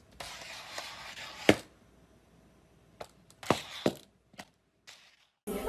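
A small ball knocking and clicking on a hard floor as a cat bats it about: one sharp knock about a second and a half in, then a handful of quicker clicks and knocks near the end, over a faint rustle at first.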